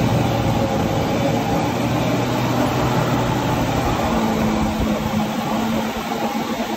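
Steady rush of water spray and wind on the microphone from an inflatable tube being towed at speed through a jet ski's wake, with the towing jet ski's engine humming low and steady underneath.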